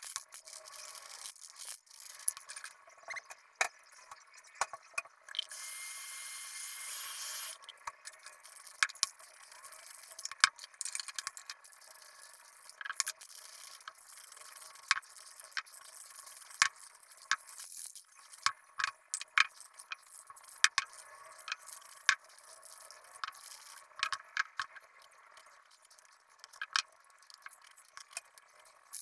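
Aerosol spray-paint can spraying in one steady hiss of about two seconds, around five seconds in, with a faint whistle in it from the nozzle. Around it, scattered sharp clicks and clinks of spray cans and tools being picked up and set down.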